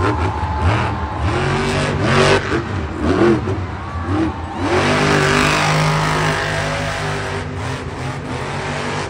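Monster truck's supercharged V8 engine revving hard, its pitch rising and falling several times, then held high and steady for a couple of seconds about five seconds in.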